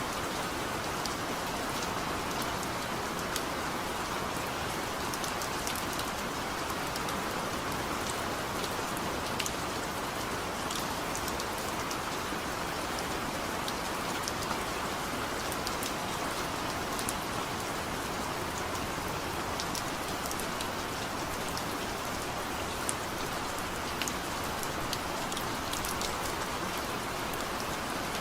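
Steady rain falling, a constant hiss of rainfall with many individual drops ticking sharply on a surface.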